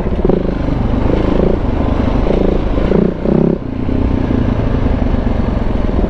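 KTM 690 big-bore single-cylinder motorcycle engine running under changing throttle while riding, with a brief easing off about three and a half seconds in.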